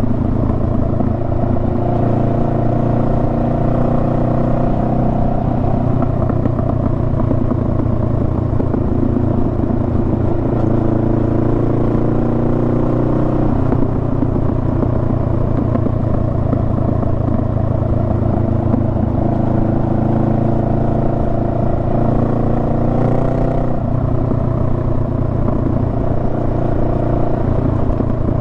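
Honda Rebel 500's parallel-twin engine running under way. Its note slowly climbs, then changes abruptly about halfway through and again near the end.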